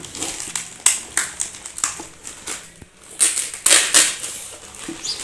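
Clear polythene bag crinkling and rustling as hands pull it off a stainless-steel electric kettle, in irregular crackles, loudest about three to four seconds in.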